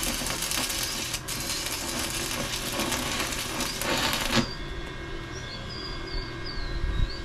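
Electric arc welding on steel bars: the arc's steady crackling sizzle, which cuts off abruptly about four and a half seconds in. Small birds then chirp.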